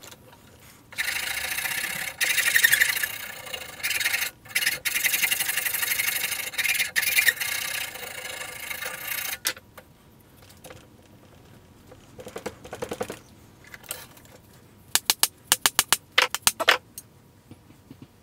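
A wooden tomahawk handle clamped in a bench vise being scraped down by hand, in quick back-and-forth strokes for about eight seconds. A few sharp clicks and light knocks follow near the end.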